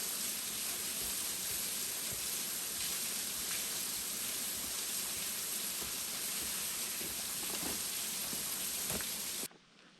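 Falling water splashing in a steady hiss that cuts off abruptly near the end.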